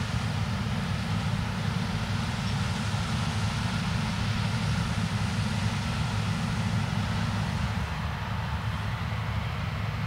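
New Holland CX8070 combine harvester at work in rice, its engine and threshing machinery making a steady low drone with a constant hum, while it unloads grain through its auger into a tractor's trailer alongside.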